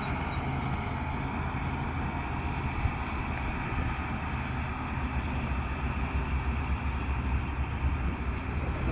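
Caterpillar 140H motor grader's diesel engine running steadily under load as it levels the ground, a continuous low rumble of heavy earthmoving machinery.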